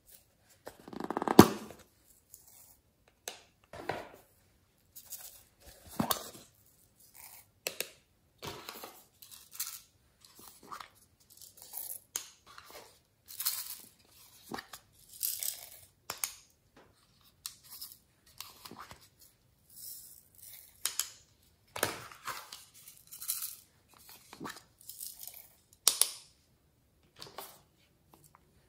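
Small plastic cases being handled and opened by hand: irregular short scratchy clicks and rustles of plastic, the loudest about a second in.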